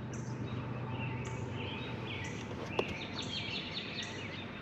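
Songbirds chirping repeatedly, with a quick trill a little past the middle, over a steady low hum. A single sharp click sounds just before the trill.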